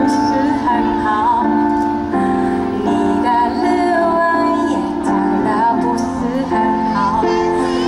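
Music: a song with a woman's singing voice over instrumental backing of held chords.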